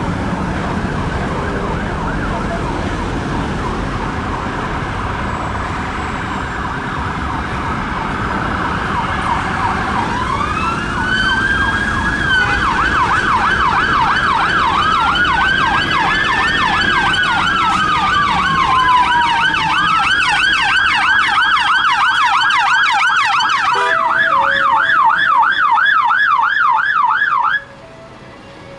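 Emergency vehicle sirens of a UK fire engine and its police escort over road traffic noise. At first a fast warble, then long rising-and-falling wails alternating with rapid yelps, louder from about ten seconds in. A lower two-note hi-lo tone joins about three-quarters of the way through, and the sirens stop abruptly near the end.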